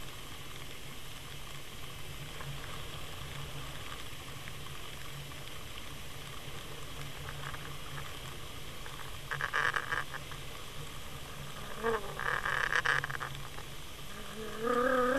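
Steady low hum of a trolling boat's motor heard underwater. About nine and twelve seconds in come two short bursts of rattling noise, and near the end a wavering sound that rises and falls in pitch.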